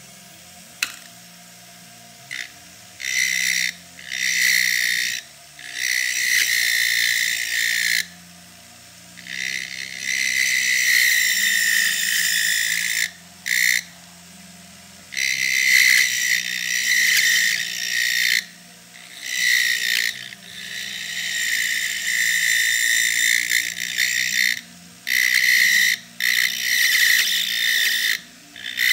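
Jeweller's rotary handpiece with a small burr grinding into a metal key blank in repeated bursts of one to three seconds. A high grinding whine sounds each time the burr bites, over a steady low hum.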